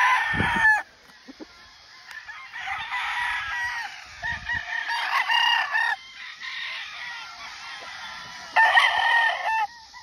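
Gamefowl roosters crowing: one crow right at the start, a longer run of crowing through the middle, and another crow about a second long near the end.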